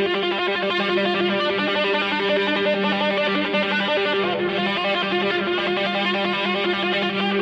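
Heavy rock music led by distorted electric guitar run through effects, with a steady low note held under busy notes above.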